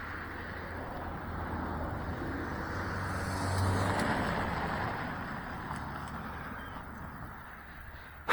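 A car passing by: road noise that swells to a peak about three and a half seconds in, then fades away.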